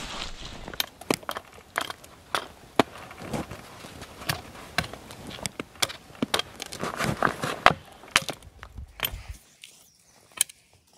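Dry twigs and branches cracking and snapping in a run of short, sharp clicks, about two a second, with a burst of denser rustling about seven seconds in. It goes much quieter near the end.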